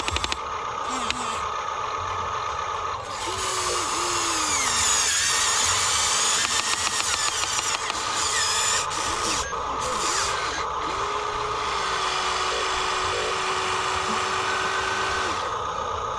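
Electric motors and plastic gearboxes of a toy RC construction vehicle whining steadily. Louder, higher-pitched whirring comes in stretches, from about three to nine seconds in and again around ten seconds.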